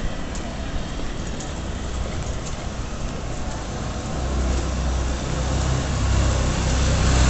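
Motorcycle-sidecar tricycle engine approaching from behind: a low hum over the street noise that grows steadily louder from about four seconds in.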